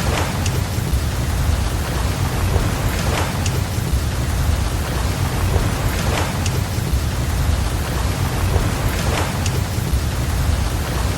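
A sleep-sound mix of steady rain over a deep, continuous rumble, with a soft swell and a sharp fire crackle about every three seconds, repeating evenly like a loop.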